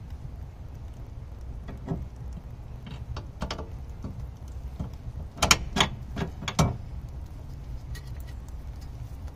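Sharp metal clinks and knocks from the new rear stabilizer bar link being handled and fitted on a 2003 Toyota Camry's suspension. A run of four loud clinks comes about five and a half to seven seconds in, over a steady low rumble.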